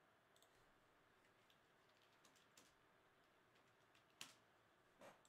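Faint computer keyboard typing: soft scattered key clicks, with two louder, sharper clicks about four and five seconds in.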